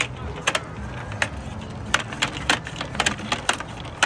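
A string of short, sharp clicks or taps, a few at first and then coming faster, about three or four a second, from about two seconds in, over a low steady rumble.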